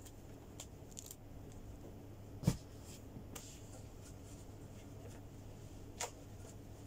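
Faint rustling of cloth and a plastic bag being handled, over a low steady hum. A sharp knock sounds about two and a half seconds in, and a lighter click near the end.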